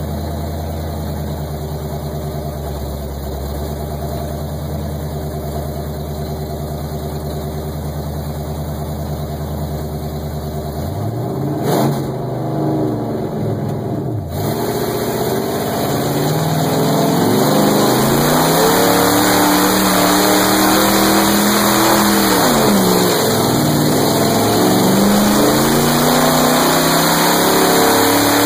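Mud bog truck's engine heard from inside the cab: a steady idle at first, a couple of quick revs about twelve seconds in, then the engine opens up and runs hard, its pitch rising and falling as the truck drives through the mud, with a loud rushing noise over it.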